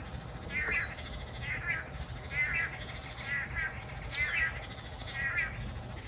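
Long-tailed manakin calling: a short wavering 'munya-munya' call repeated about once a second, six times.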